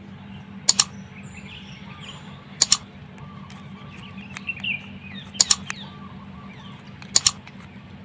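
Small birds chirping and twittering over a steady low hum, broken four times by loud, sharp double clicks like mouse-click sound effects, roughly two seconds apart.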